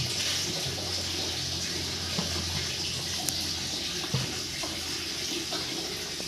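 Steady rush of running water, over a low steady hum, with a few faint knocks.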